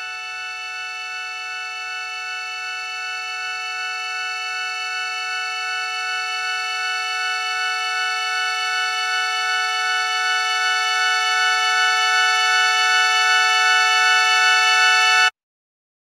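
Siren tone closing a recorded song: it holds one steady pitch with many overtones and grows gradually louder, then cuts off suddenly near the end.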